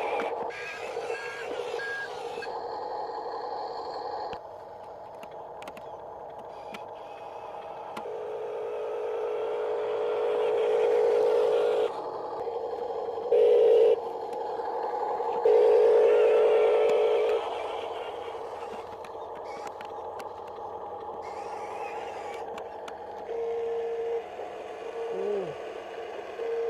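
Small electric gear motors of a Huina 1573 RC excavator whining as it works, the whine swelling louder in several spells that start and stop abruptly, with light plastic clicks.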